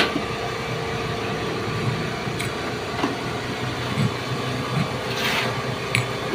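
Concrete vibrator running steadily as fresh concrete is consolidated, a constant mechanical drone with a few short knocks over it.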